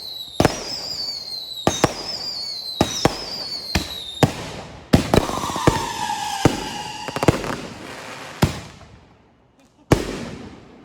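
Fireworks display: a string of sharp bangs, with whistling fireworks whose whistles fall in pitch through the first few seconds. A rapid crackle with a lower falling whistle follows, then a last couple of bangs as the noise dies away.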